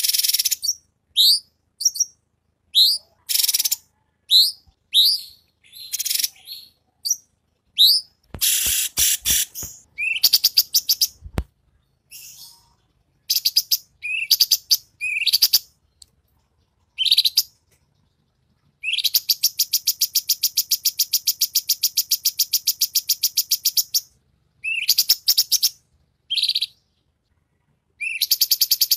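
Recorded songbird calls mixed from cucak cungkok, cililin and kapas tembak: clear, sharp rising whistled notes and a few clicks, with a run of rapid, evenly repeated chattering notes lasting about five seconds past the middle.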